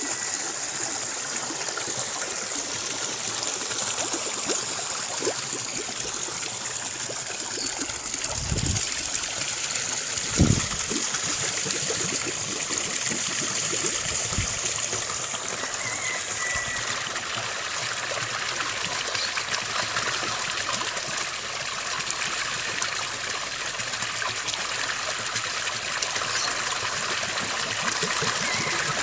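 A small stream trickling and running steadily, with an occasional faint bird call above it. Two low thumps come about eight and ten seconds in, the second the loudest sound.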